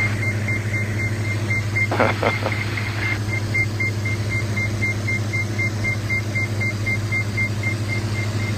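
Diamond DA42 Twin Star heard inside the cockpit, flying on its one remaining engine with the other shut down: a steady engine and propeller drone, with a high warning beep repeating about three times a second over it.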